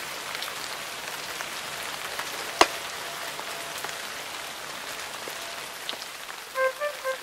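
Steady rain falling, an even hiss dotted with small drip ticks, and one sharp tap about two and a half seconds in. A melody of short notes starts just before the end.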